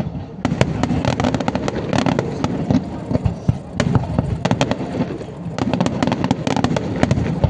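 Fireworks display going off: rapid crackling cracks and pops over a continuous rumble of bursting shells, with denser volleys of cracks about half a second in and again near the end.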